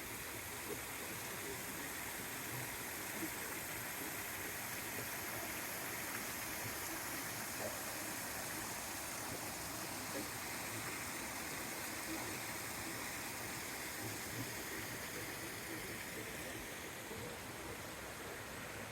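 Running mountain water rushing steadily, a constant even rush.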